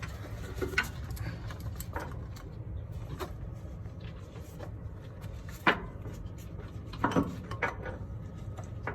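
Hand tools working a metal line fitting: scattered, irregular clicks and knocks, the sharpest about two thirds of the way in, over a steady low hum.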